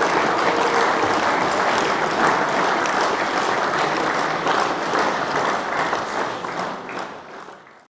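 Crowd applauding: a dense patter of many hands clapping, fading down over the last couple of seconds and then cutting off.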